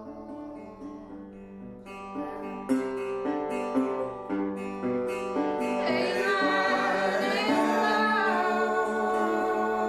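Background music: acoustic guitar with plucked notes, joined about six seconds in by a singing voice.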